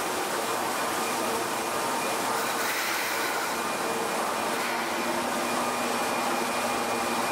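Osaka Metro Midosuji Line subway train at the platform, giving a steady whirring hum with a few faint steady tones in it.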